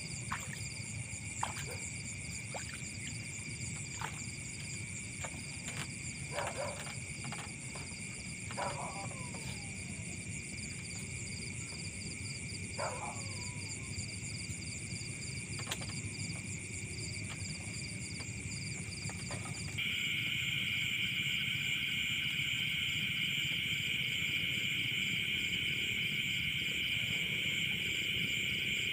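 Night insect chorus: a steady, high-pitched pulsing chirr from several insects at once, with scattered clicks and knocks in the first part. The chorus gets louder about 20 seconds in.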